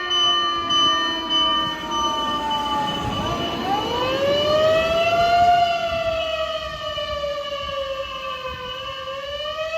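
Japanese fire engine's mechanical motor siren sliding down in pitch, then spinning up again about three seconds in. It wavers slowly up and down, sinking near the end before rising once more.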